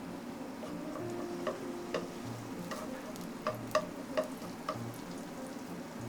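Food sizzling in a frying pan, with a utensil clicking and tapping against the pan as it is stirred; the sharpest taps come about four seconds in.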